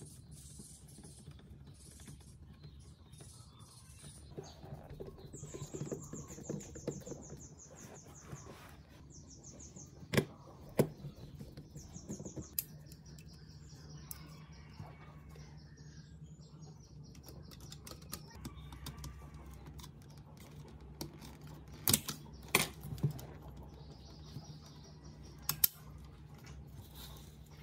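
Plastic and metal parts of a cassette deck mechanism being handled: scattered clicks and rattles, with sharp clicks twice about ten seconds in and again around twenty-two seconds. Runs of rapid, high-pitched chirping trills and a low steady hum sit in the background.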